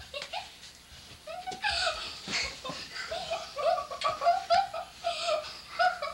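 A young child laughing in short, high-pitched bursts of giggles that come quickly one after another from about halfway through.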